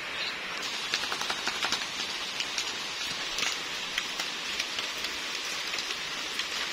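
Light rain falling steadily, with many separate drops ticking close by.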